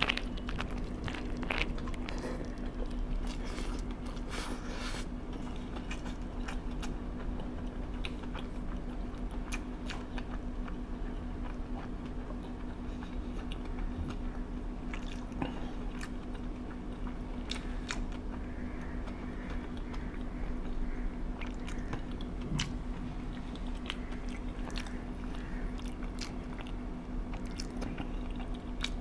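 A person chewing and biting food close to the microphone, with crunchy bites and wet mouth sounds coming irregularly, over a steady low hum.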